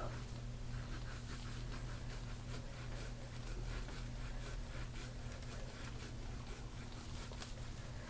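Deep-tissue back massage: a dense, irregular run of soft rubbing strokes over skin and clothing, with a steady low hum beneath.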